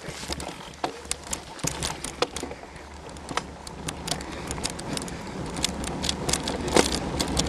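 Mountain bike riding along a woodland trail: many irregular sharp clicks, crackles and rattles from the tyres on the trail and the bike's parts, over a steady low rumble.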